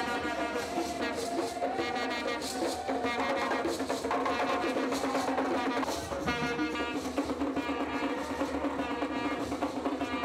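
Brass band music with drums, playing continuously.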